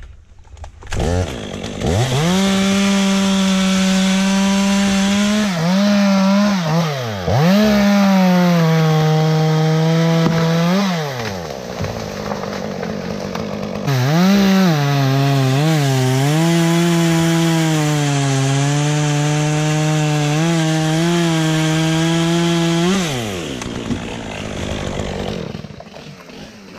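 Top-handle chainsaw revving and cutting through a tulip poplar limb, its engine pitch sagging and recovering as the chain bites. It runs in two long bouts with a short lull a little before halfway, then winds down near the end.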